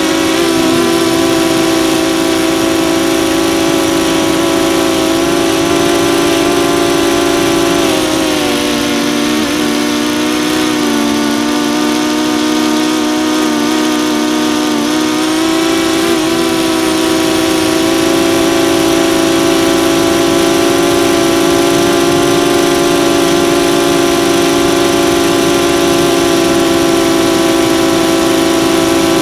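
DJI Phantom 2 quadcopter's brushless motors and propellers droning steadily close to the onboard camera. The pitch dips for several seconds about eight seconds in, then comes back up a little after fifteen seconds.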